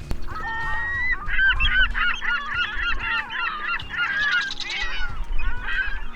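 A flock of birds calling: many short, overlapping rising-and-falling calls in quick succession, thickest around the middle.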